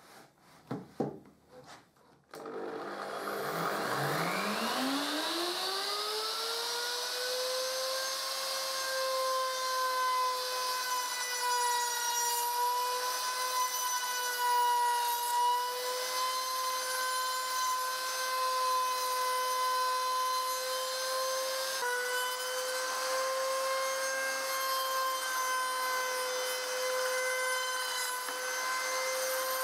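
Soft-start electric plunge router switched on after a few light clicks: its motor rises slowly in pitch over several seconds to a steady high whine, then runs on while the bit mills a round wooden tenon, the pitch dipping slightly under load now and then.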